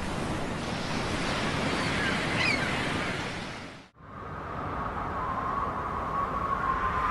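Ocean surf sound of waves washing, with a few short high gliding cries about two seconds in. About four seconds in it cuts off and gives way to a swelling, rushing logo sound effect carrying a steady mid-pitched tone.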